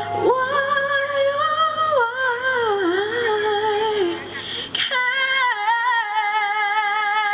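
A woman singing into a handheld stage microphone, holding long notes with vibrato and sliding between pitches, with a short break about two-thirds of the way through before she starts a new long-held phrase.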